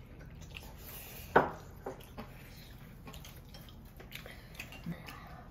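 Eating at a table: quiet chewing and slurping of noodles, with chopsticks clicking against bowls now and then and one sharper click about a second and a half in.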